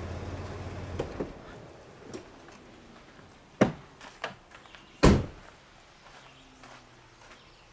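A Jeep Liberty's V6 idling with a steady low hum, switched off about a second in. A few sharp knocks and clicks follow, the loudest a car door shut with a heavy thump about five seconds in.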